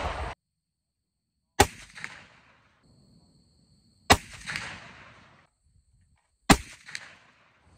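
Three shots from a scoped inline muzzleloader rifle, about two and a half seconds apart, each a sharp report followed by about a second of echo dying away. It is loaded with 70 grains of loose BH209 powder and fired with Winchester muzzleloader-only 209 primers, which here give lower velocities, in the 1700s fps, than the other primers.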